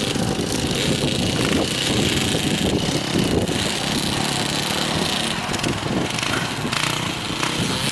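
Motocross bike engine running as it is ridden across a grass field.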